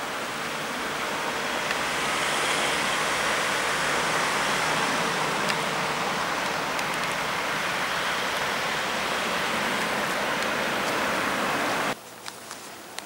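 A steady, even rushing noise with no pitch to it, cutting off abruptly near the end and leaving a quieter background with a few faint clicks.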